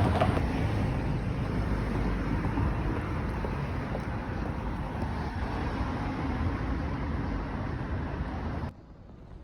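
Steady low rumbling noise, like road or vehicle noise, that cuts off suddenly near the end.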